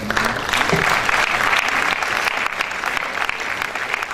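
Audience applauding, the clapping thickening within the first second and then holding steady, greeting a felicitation on stage.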